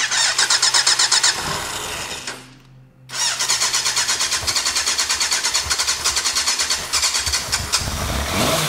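Yamaha FZR600 inline-four cranking over on its electric starter, with no choke, after about 20 years of sitting. It cranks in two attempts: a short burst, a pause of about two seconds, then a longer run of about four and a half seconds.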